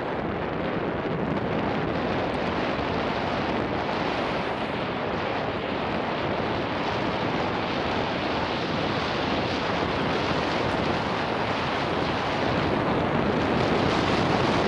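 Steady rush of wind over the microphones of a Garmin VIRB 360 action camera carried on a mountain bike at race speed down an enduro stage, growing a little louder near the end.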